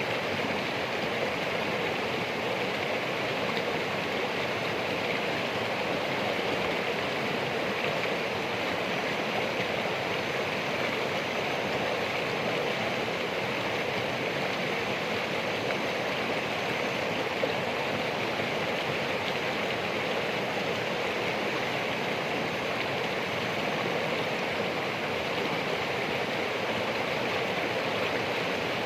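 Running water of a stream rushing steadily: an even, unbroken hiss with no pauses.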